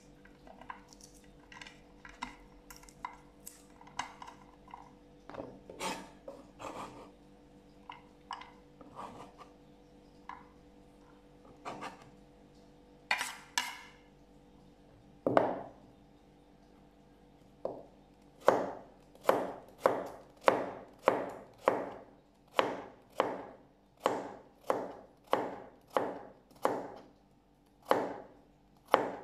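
Kitchen knife cutting carrot on a cutting board. The first half is scattered light taps and knocks; from about halfway there is a steady run of chops, about three every two seconds.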